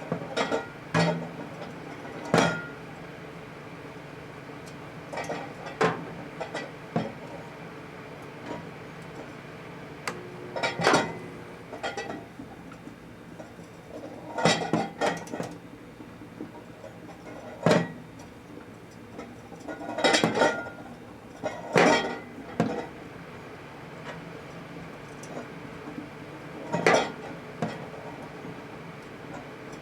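A microwave oven running with a steady low hum while a 400-watt high-pressure sodium bulb sits inside. Sharp clicks and clinks come at irregular moments, some single and some in quick clusters.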